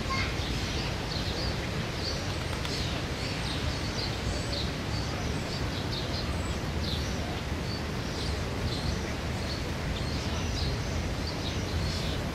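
Outdoor ambience of small birds chirping in short, scattered calls, over a steady low rumble.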